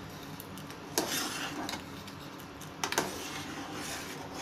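Steel ladle stirring a pot of simmering dumplings in an aluminium pan, clinking against the pot about a second in and again about three seconds in, with a brief scrape after each.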